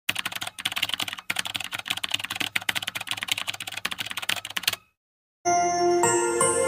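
Fast computer-keyboard typing, a dense run of clicks lasting about four and a half seconds, then it stops. After a short silence, intro music with sustained tones starts near the end.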